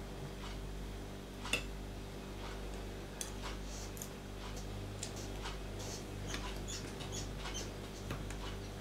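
Eating with a spoon from a ceramic bowl: scattered small clicks of the spoon against the bowl and mouth sounds while chewing, with one sharper clink about one and a half seconds in, over a low steady hum.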